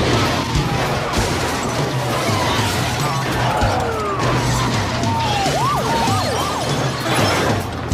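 Movie soundtrack of police cars crashing into each other in a pileup: metal crunching and smashing under music, with short squealing glides in the second half.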